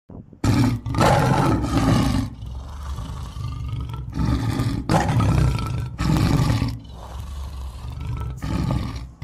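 Big cat roaring, a dubbed-in roar sound effect: two long, loud roars, the first about half a second in and the second about five seconds in, with lower rumbling roars between and after them.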